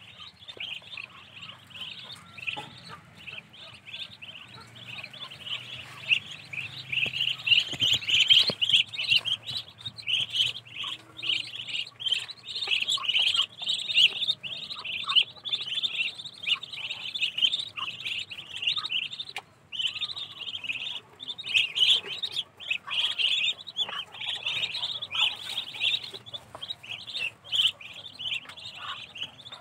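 A group of ducklings peeping continuously: a dense chorus of short, high-pitched peeps overlapping one another.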